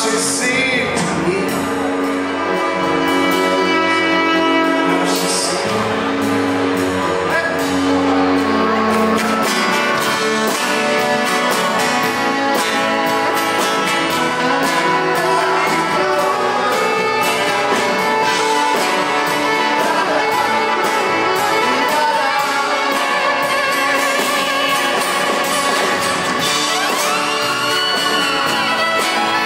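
Live band playing a song on stage, with strummed acoustic guitar, electric guitar, bass and keyboard.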